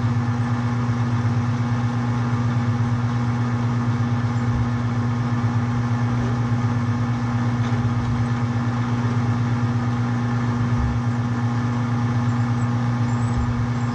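Metal lathe running at a steady speed, a constant motor hum throughout, while it cuts a long, overhung workpiece that walks under the cut because the setup is not rigid enough.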